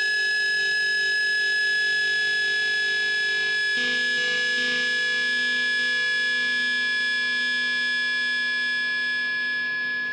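Sustained, effects-laden drone music: a steady, high held tone over a layered chord of held notes, whose lower notes change about four seconds in.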